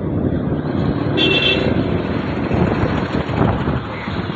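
Dense city road traffic heard from a moving vehicle: a steady rumble of engines and tyres, with a short high-pitched vehicle horn toot about a second in.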